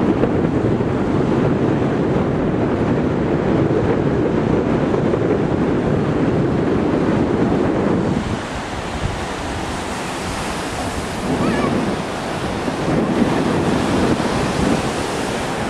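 Wind buffeting the microphone over the steady wash of breaking surf. About eight seconds in the wind rumble drops and the hiss of the waves comes through more clearly.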